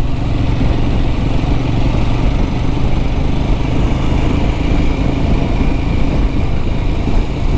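A motorcycle engine running steadily on the move, under a heavy, even rumble of wind and road noise.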